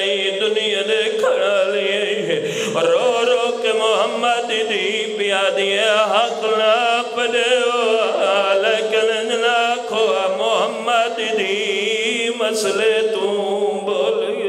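A man's voice chanting a melodic elegiac recitation through a microphone and loudspeakers, with wavering, drawn-out notes. A steady low tone runs underneath.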